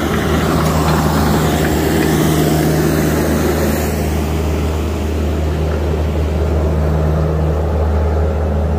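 Diesel engine of a crawler dozer running steadily at a constant speed.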